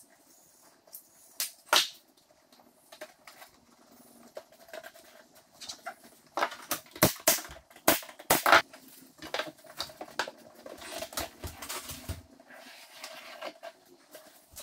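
Beadboard panelling being fitted to a cabinet end: scattered sharp wooden knocks and clicks, with a quick run of loud sharp cracks about seven to eight and a half seconds in, then lighter rattling.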